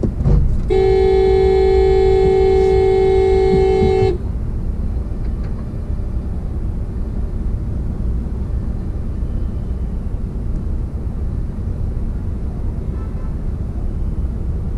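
A vehicle horn sounds one steady blast of about three seconds, starting just under a second in, over a steady low rumble of traffic heard from inside a car.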